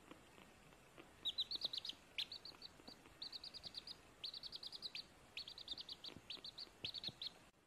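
A young chick peeping: quick runs of short, high, falling peeps, several a second, broken by brief pauses.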